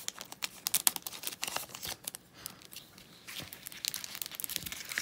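Packaging crinkling and rustling in the hands as a pad of sticky notes is slipped back into its wrapper: an irregular run of quick crackles.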